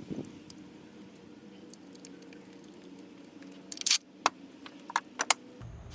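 Faint steady hum, then from about four seconds in a handful of sharp metallic clicks and taps from hand tools and engine parts being handled.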